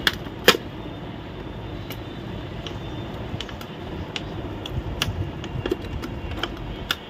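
Sharp plastic clicks and knocks from an Epson L3210 printer's casing as the scanner unit is unclipped and lifted by hand, a dozen or so scattered through, the loudest about half a second in, over a steady low rumble.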